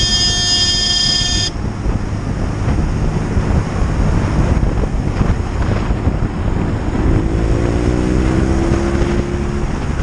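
Wind rush and the low rumble of a BMW R nineT's boxer-twin engine at motorway cruising speed, with the engine note rising in the last few seconds. A held music chord cuts off about a second and a half in.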